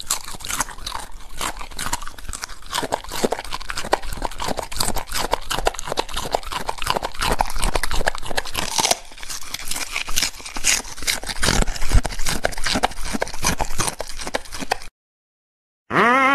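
Border collie biting and chewing raw vegetables such as an asparagus stalk, a quick run of crisp crunches picked up close by a microphone on the bowl. The crunching stops suddenly near the end.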